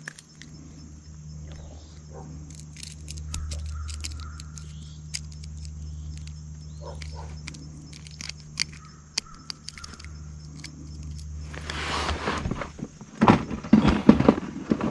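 Light clicks and clinks of a hook and soft-plastic lure being worked free from a small bass held in a towel, over a steady low hum. Near the end comes a few seconds of much louder rustling and knocking as the fish is handled and lifted.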